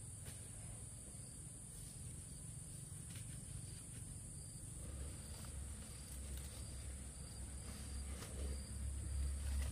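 Insects, crickets by the sound of it, chirring in one steady high-pitched drone, with a low rumble coming up about halfway through.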